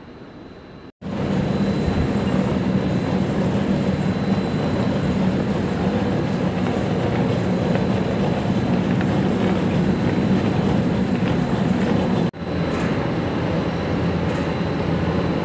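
Factory machinery of a PVC mesh mat production line running: a loud, even noise with a steady low hum. It cuts out briefly about a second in and again near the end.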